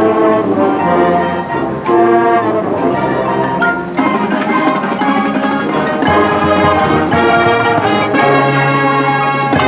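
High school marching band playing, brass and percussion, with held brass chords that change every second or so.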